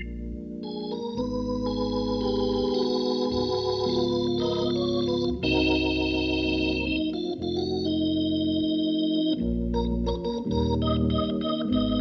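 Jazz organ trio playing: the organ holds full sustained chords that change every second or two over a bass line, then plays short, choppy chord stabs near the end.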